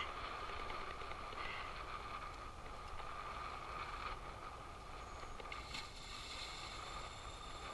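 Tarpon splashing at the surface about six seconds in, over steady water noise and a steady hum.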